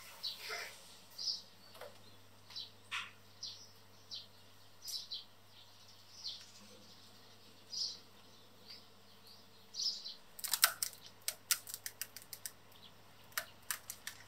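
Short bird chirps at scattered intervals, some dropping quickly in pitch, with a quick run of sharp clicks from about ten seconds in.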